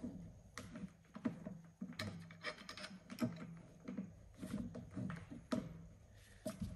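Stilson pipe wrench being adjusted and seated on a steel pipe: irregular light clicks and knocks of the metal jaws against the pipe and bench as the gloved hand works the adjusting nut.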